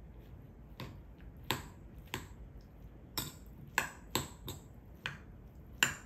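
Metal spoon clinking and scraping against a ceramic bowl as rice is mixed, about nine sharp clinks at uneven intervals.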